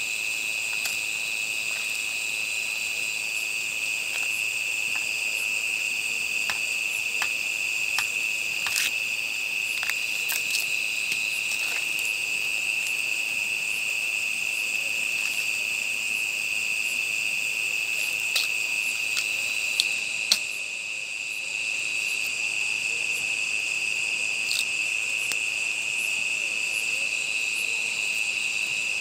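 Steady, high-pitched chorus of night insects such as crickets, dipping briefly about two-thirds of the way in. Scattered sharp clicks and crackles sound over it, the loudest a few just before the dip.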